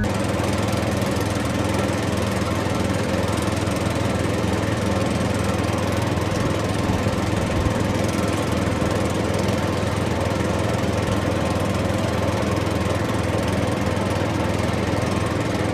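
Small motor of a DIY miniature bulldozer model running steadily, an even hum with a mechanical rattle that doesn't change in speed.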